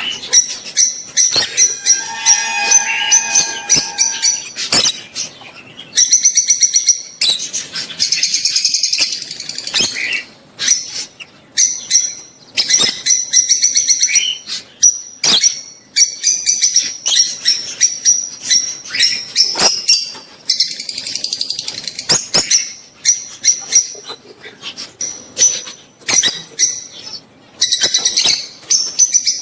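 Peach-faced and Fischer's lovebirds giving shrill, rapid chirping and screeching calls in quick clusters with short pauses between: mating calls.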